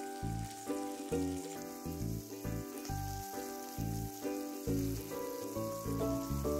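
Background instrumental music with melodic notes over a rhythmic bass line. Under it, a steady sizzle of onions and lima beans frying in oil in the pan.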